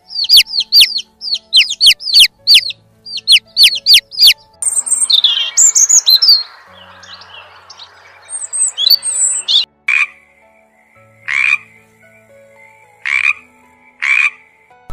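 A series of animal calls. First come quick groups of short, high chirps, each falling in pitch. Then come scattered bird chirps over a steady hiss, and near the end four short calls from herring gulls, spaced a second or more apart.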